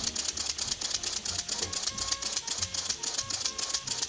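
Small 3D-printed plastic steam engine running on low-pressure steam from a pressure cooker, chuffing and clicking rapidly at about eight beats a second. Faint background music plays under it.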